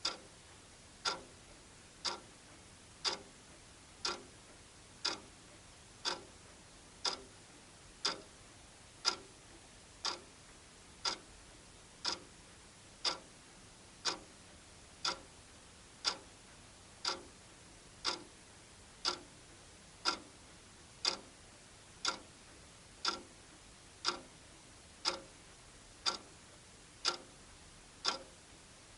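Wall clock ticking steadily, one sharp tick a second.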